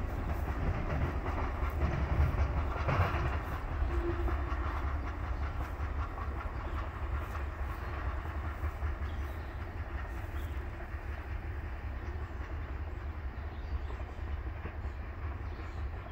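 Freight oil train's rumble and wheel clatter on the rails, fading slowly as the train moves away into the distance.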